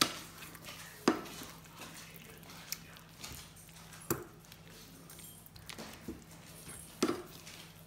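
Wooden spatula stirring a thick tomato-and-vegetable stew in a non-stick frying pan, with sharp knocks of the spatula against the pan every second or few and soft squelching of the sauce between them.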